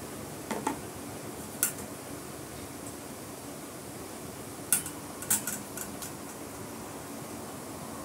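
A plastic seasoning sachet being squeezed and handled over a glass plate: a few short, sharp crinkles and clicks, the loudest about a second and a half in and a cluster a little past the middle, over a steady background hiss.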